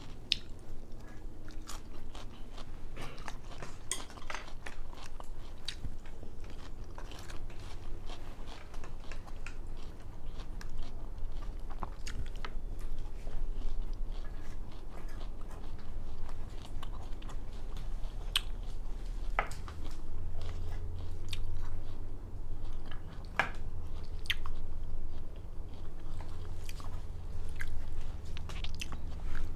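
A person chewing and biting food from a Japanese bento box of sushi, sashimi and tempura, close to a clip-on microphone, with irregular small wet mouth clicks.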